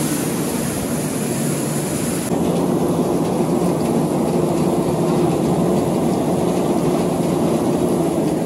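Self-propelled grain loader running steadily, its scraper feeder drawing grain waste from the pile and throwing it up a chute into a truck body: a loud, steady mechanical din with a low hum. It grows slightly louder about two seconds in.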